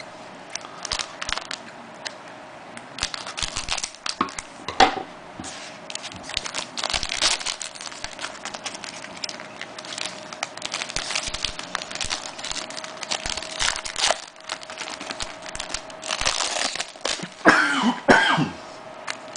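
A trading-card pack being torn open and cards handled, a run of crinkling and clicking, with a faint steady hum underneath. A person coughs hard near the end.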